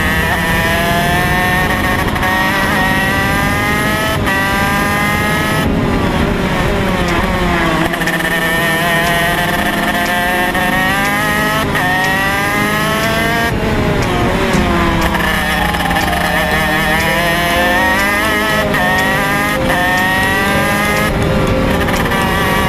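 TM K9C 125cc two-stroke KZ shifter-kart engine at racing speed, its pitch climbing through the gears, dropping back slightly at each upshift. The note falls away three times as the kart slows for corners, then climbs again.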